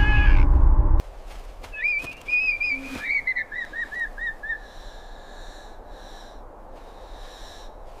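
A loud low rumble with a wavering high call cuts off about a second in. Then come bird-like whistling calls: a warbling whistle, a run of quick dropping notes, and a faint high tone that fades out.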